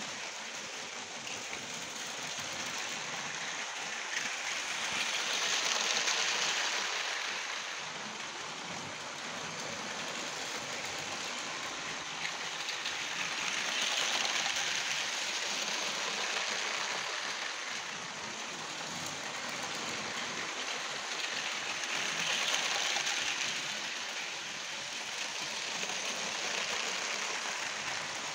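Lego train running along plastic Lego track, a steady hissing rattle of wheels on the rails. It swells three times, about every eight seconds, as the train comes round close past.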